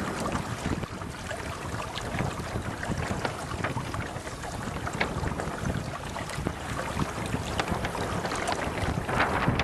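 Wind rumbling on the microphone with water splashing and lapping against the hull of a Hobie Adventure Island sailing kayak under sail.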